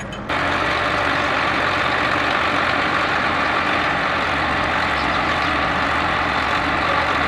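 Massey Ferguson 1035 DI tractor's diesel engine running steadily at close range. It comes in abruptly a moment in, replacing a quieter engine sound.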